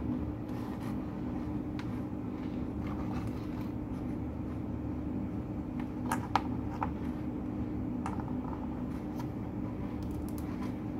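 Steady low background hum with a held tone, over which wires and a crocodile-clip test lead are handled on a bench, giving a few light clicks and rustles, the sharpest about six seconds in.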